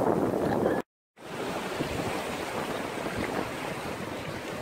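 Surf washing in the shallows, with wind on the phone's microphone. The sound drops out completely for a moment about a second in, then comes back a little quieter and steadier.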